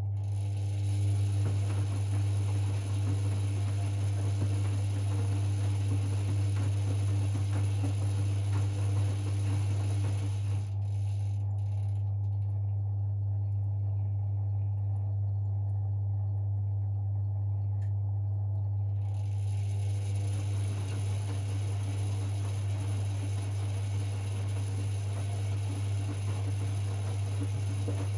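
Privileg 5020 washing machine turning its drum in the wash, its motor running with a mechanical rattle, a motor the owner hears as well worn from years of laundry use. The motor stops about a third of the way through, leaving only a low hum, and starts turning the drum again about two thirds in.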